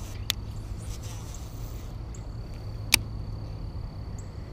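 Baitcasting reel and rod being handled during a lure retrieve: a couple of sharp clicks, the loudest about three seconds in, over a steady low hum and a faint, steady high tone.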